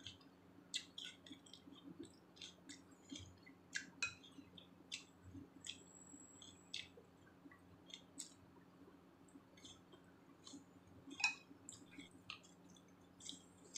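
Quiet close-up chewing of raw salad vegetables: a scatter of short, soft mouth clicks and crunches.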